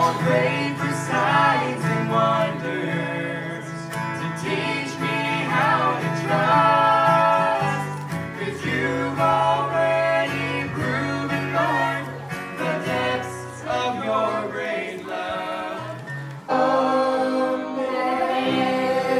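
Voices singing a gospel song with acoustic guitar accompaniment. About sixteen and a half seconds in, the sound cuts abruptly to a different recording.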